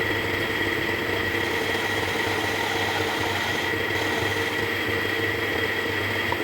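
Metal lathe running steadily while taper-boring the bore of a diesel engine flywheel, a constant high whine over the machine's hum.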